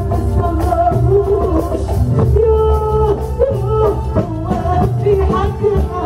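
Live band music with a woman singing lead into a microphone, her voice over a steady beat.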